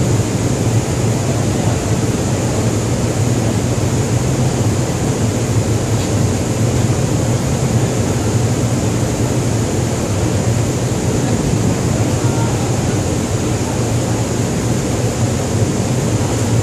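Steady drone of a ship's machinery: a constant low hum with a rush of noise over it, unchanging throughout.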